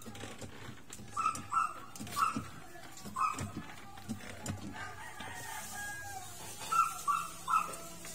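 An animal's short, high calls, repeated in quick groups of two to four.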